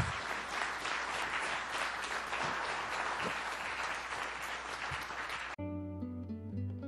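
Audience applauding, a dense steady clapping that cuts off abruptly about five and a half seconds in, replaced by instrumental music.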